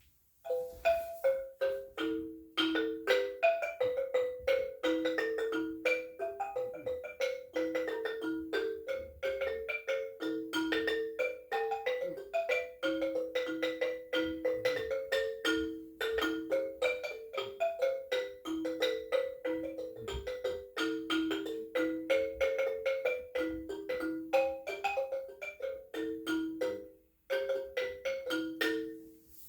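Madimba, a West/Central African-style trough xylophone, played in a quick, repeating pattern of struck notes that move among a few mid-range pitches. The playing pauses briefly three times, about two, sixteen and twenty-seven seconds in, and stops just before the end.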